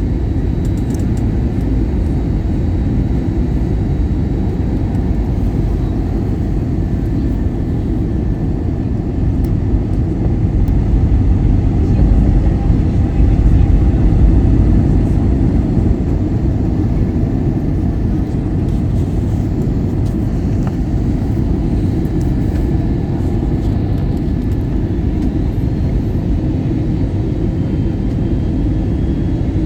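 Steady cabin rumble of an Airbus A320neo in flight, engines and airflow together, with faint steady high tones over it. It swells somewhat for a few seconds around the middle.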